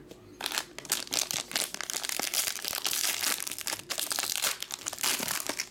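Foil wrapper of a trading-card pack crinkling and tearing as it is ripped open by hand, starting about half a second in.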